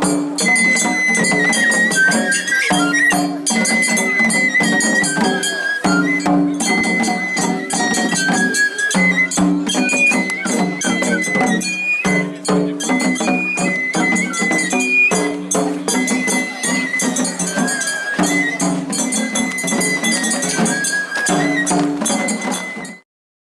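Japanese festival music (matsuri-bayashi) with a high flute melody of held, stepping notes over steady percussion. It cuts off suddenly near the end.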